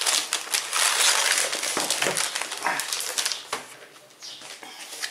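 Thin plastic packaging crinkling and rustling as a laptop is lifted out of its clear plastic bag and the plastic sleeve on its lid is handled; the crinkling thins out in the last second or so.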